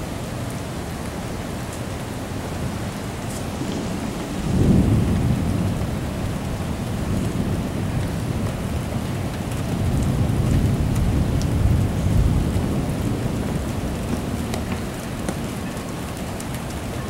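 Heavy rain falling steadily in a thunderstorm. Low thunder rumbles in suddenly about four and a half seconds in, and a longer rumble builds and fades a few seconds later.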